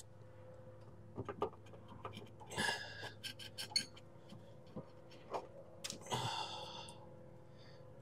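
Quiet hand work on the rubber hoses and plastic connectors around a Subaru Sambar's carburetor as they are worked loose: scattered small clicks and knocks. Two breathy exhales from the effort come about two and a half and six seconds in, over a faint steady hum.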